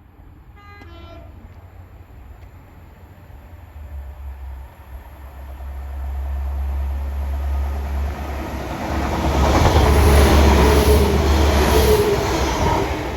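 Train approaching and running through a station, building steadily to its loudest about ten seconds in, with wheels clattering over the rail joints, over a steady low drone. A brief run of short beeping tones comes about a second in.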